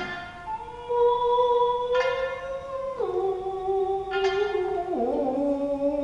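Tokiwazu music: a shamisen plucks single notes about every two seconds under a chanter's long held notes, which slide down in pitch twice.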